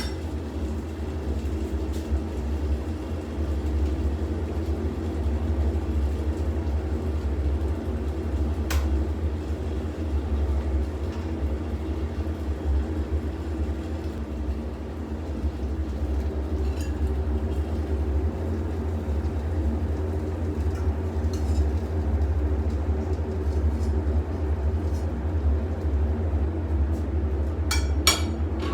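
Car cabin noise while driving: a steady low road rumble with a faint hum and a few light clicks.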